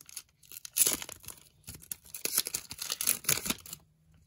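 A hockey card pack's wrapper being torn open and crinkled, in a run of quick rustling bursts that stop about three and a half seconds in.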